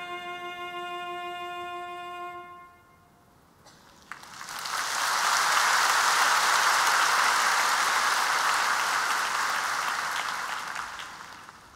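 The last sustained chord of a string-backed ballad rings and fades out over about three seconds. After a short hush, a large concert audience breaks into applause that swells, holds, and dies away near the end.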